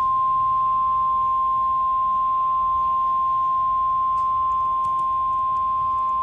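NOAA Weather Radio 1050 Hz warning alarm tone: one steady, unbroken tone over faint radio hiss. It signals that a warning, here a severe thunderstorm warning, is about to be read.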